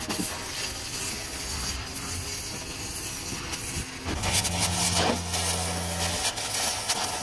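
Cutting torch hissing steadily as it cuts through a dumpster's steel top rail, with a few faint pops. A low engine hum comes in for about two seconds in the middle.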